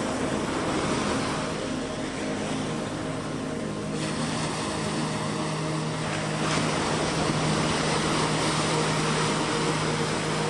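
Boat engine running at a steady drone, with rushing wind and water noise over it.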